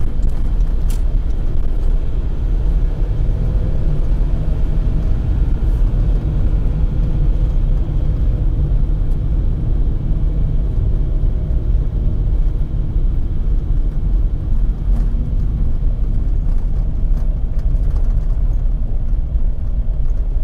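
Steady low rumble of a car driving along a sealed road: engine and tyre noise, with no clear changes.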